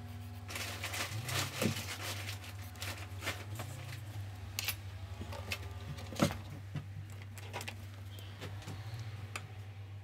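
Pencil scratching and tapping over paper while sketching quick outlines, with a sharp tap about six seconds in, then a few lighter clicks. A steady low hum runs under it.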